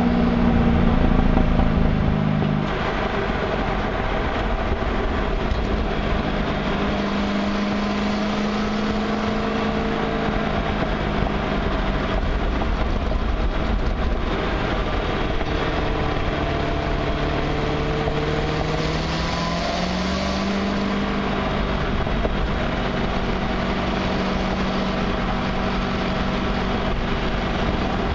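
2011 Corvette Z06's 7.0-litre LS7 V8, heard through its factory exhaust from between the mufflers, at a steady, light-throttle cruise. A low, even exhaust drone whose pitch drifts gently up and down, easing off slightly about two seconds in.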